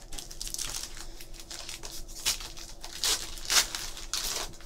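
Foil trading-card pack wrapper being torn open and crinkled in the hands: a run of irregular crackly rustles, the loudest crinkles a little past the middle.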